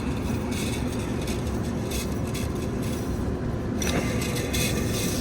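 Steady low machinery hum with a rumbling noise beneath it, unchanging throughout.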